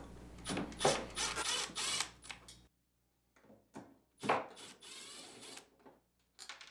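Cordless brushless drill/driver (Milwaukee M12 Fuel) backing out the dishwasher kick plate's screws. It runs in two bursts with a thin high motor whine, the first for about two seconds and the second starting about four seconds in, with a few small clicks between.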